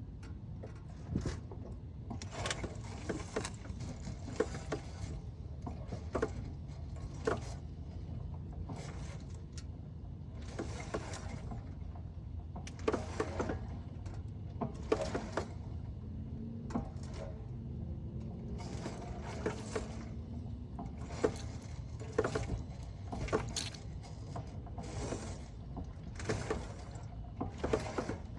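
Steering noise from a 2006 Acura Type S, a fault the owner calls a bad steering sound: repeated short scraping bursts with clicks, every second or two, over a steady low engine hum.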